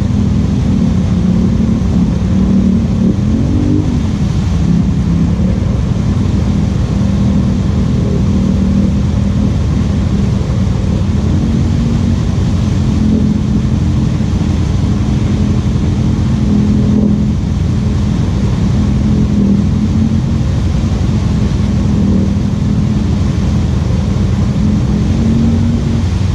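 Polaris Sportsman Highlifter ATV engine running steadily at low revs, its pitch briefly dipping and rising a few seconds in.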